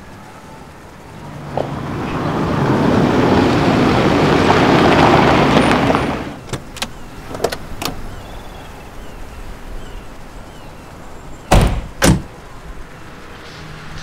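A car, an Opel Astra, drives up over a gravel lot and stops about six seconds in. A few door clicks follow, then two car doors slam shut about half a second apart near the end.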